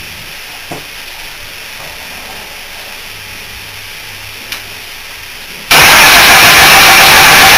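Morris 1100's BMC A-series four-cylinder engine being started again with fresh fuel: a quiet stretch with a couple of faint clicks, then a sudden, very loud, steady burst of engine noise near the end.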